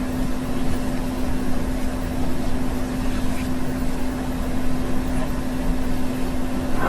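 Steady hum with one constant low tone over an even background hiss, like a running appliance or motor in the room.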